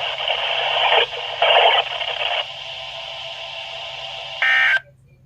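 NOAA Weather Radio broadcast playing through a Midland WR120 weather radio's speaker as a hissy, static-filled signal with louder stretches in the first half. A brief buzzy burst comes just before the end, then the audio cuts off suddenly.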